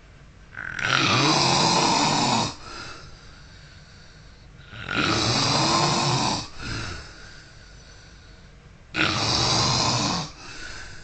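A man snoring in his sleep: three long, loud snores about four seconds apart, each followed by a short, softer breath.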